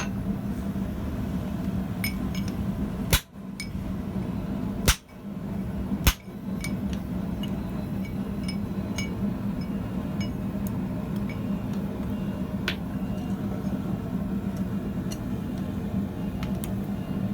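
Steady low hum of a blacksmith's forge running, with three sharp clicks in the first six seconds and faint light ticks scattered throughout.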